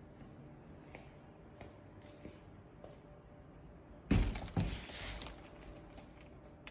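Two sudden loud knocks about half a second apart, about four seconds in, each followed by a brief rattle, against faint room noise.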